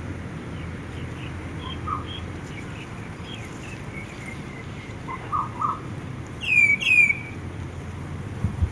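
Wild birds chirping in short, scattered notes over a steady low wind rumble. About two-thirds of the way through come two loud, quick down-slurred calls, one right after the other.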